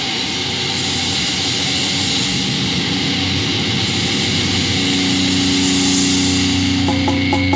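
Noisy intro passage of a death metal recording: a steady rushing roar, joined a little past halfway by low sustained tones, with a few clicks near the end just before the band comes in.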